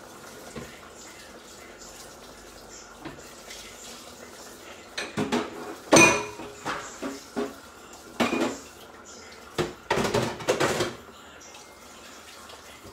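Kitchen clatter: pots, dishes and utensils being handled, a run of clinks and knocks between about five and eleven seconds in, the loudest around six seconds.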